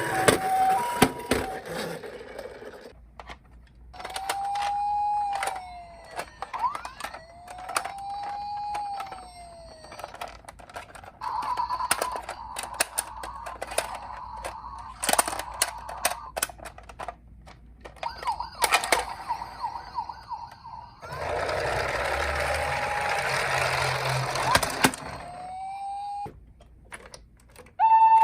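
Toy ambulance minicars' electronic sirens sounding one after another: a brief hi-lo two-tone, then slow rising-and-falling wails, a steady tone and a fast warble. Sharp plastic clicks and knocks come between them, and about three quarters of the way through there are a few seconds of rattling noise.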